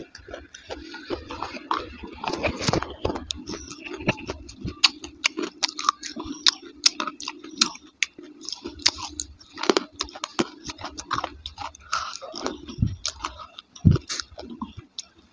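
Close-miked chewing and crunching: a steady run of sharp, wet mouth clicks and crunches, irregular and several a second.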